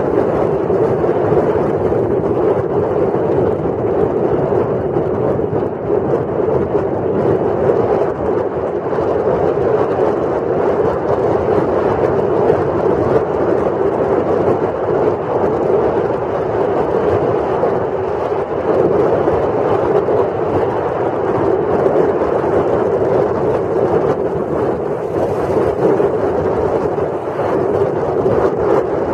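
Steady rushing noise of wind over the microphone and the hiss of sliding fast down a groomed snow piste.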